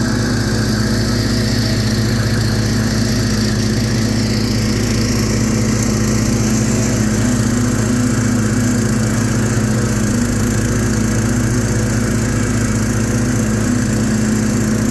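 Kohler 18-horsepower engine of a Hustler FasTrak 42-inch zero-turn mower running steadily while mowing grass.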